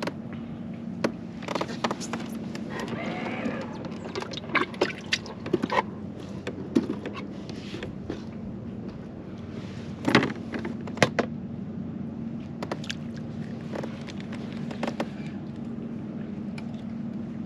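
Scattered knocks and clicks of fishing gear handled against a plastic kayak hull, over a steady low hum.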